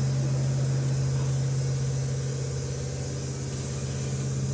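A machine running steadily with a constant low hum that does not change in pitch.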